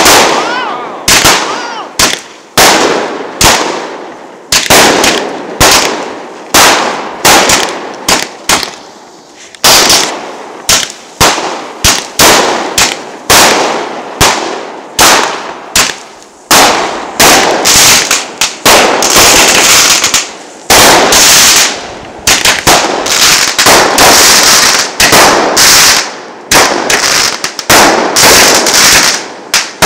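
Fireworks going off in a long rapid series of sharp bangs, about one or two a second, each ringing out briefly. In the second half the shots come thicker, with a steady hiss between them.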